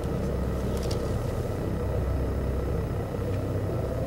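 A steady low rumbling drone with a held tone above it, unbroken throughout: an ominous suspense underscore.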